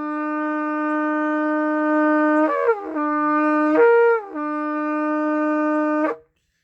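A shofar blown in long held low notes, broken twice by quick leaps up to its higher note and back, ending abruptly about six seconds in.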